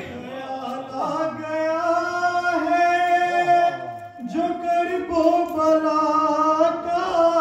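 A man singing a devotional manqabat into a microphone, holding long drawn-out, gently wavering notes with no words made out. The voice breaks off briefly about four seconds in, then takes up another long held note.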